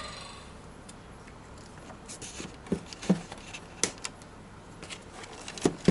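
Crossbow parts and their packaging being handled: scattered light clicks, knocks and rustles, with a few duller knocks about three seconds in and near the end.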